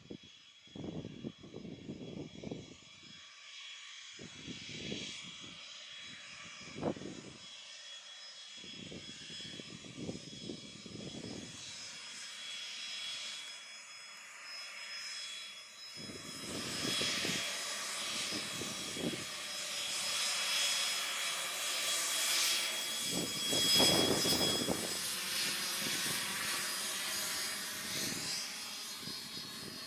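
Twin GE Honda HF120 turbofans of a HondaJet HA-420 whining steadily at taxi power as the jet rolls by. The whine grows louder past the middle and is loudest a few seconds before the end, while gusts of wind buffet the microphone.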